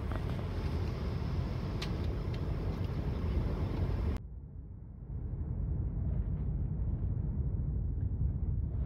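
Steady low rumble of an airliner cabin in flight, engine and air noise heard from a passenger seat. About four seconds in it turns abruptly duller and a little quieter, then carries on steady.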